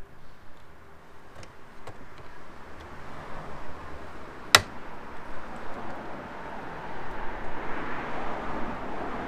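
Snips cutting through the plastic on the back of a car front grille, with one sharp snap about four and a half seconds in. A rushing background noise swells in the second half.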